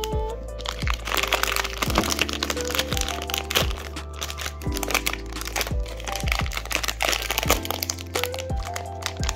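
Background music with held notes and a steady beat, over the crinkling and crackling of a plastic blind-bag wrapper as a small toy is unwrapped and handled.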